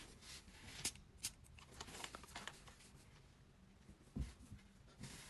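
Hands handling packaging: soft rustles and scattered sharp clicks and taps, the loudest about a second in, and a dull thump about four seconds in.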